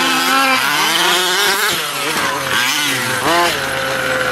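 Small two-stroke petrol engines of two 1/5-scale RC cars, a Losi 5IVE among them, revving up and down as they race. A little over three seconds in, one engine blips sharply and then settles into a steady idle.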